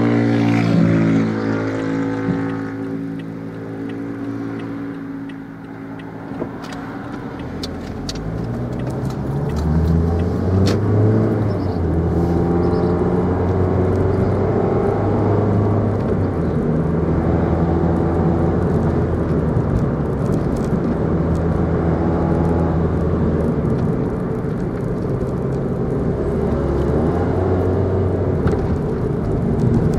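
Car engine and tyre noise heard from inside the cabin while driving, the engine note shifting up and down in pitch every few seconds.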